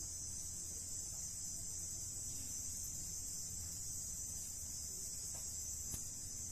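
Crickets chirring in a steady, high-pitched night chorus, over a low background rumble.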